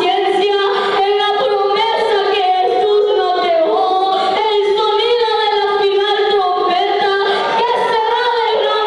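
Several voices singing a church song together with music.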